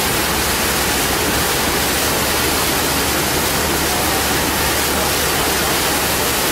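Steady, loud rushing noise aboard a moving river boat, with wind on the microphone and the low hum of the boat underway.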